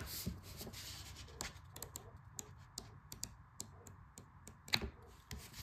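Pages of a booklet being leafed through by hand: soft, quick paper flicks and rustles, with one louder tap near the end.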